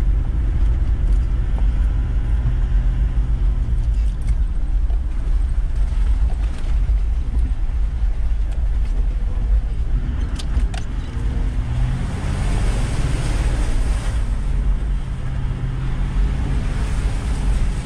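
Toyota LandCruiser 70 Series engine running at low speed on a muddy four-wheel-drive track, heard from inside the cabin. The engine note drops about four seconds in and rises again near the end, with a few sharp knocks as the vehicle rides over bumps.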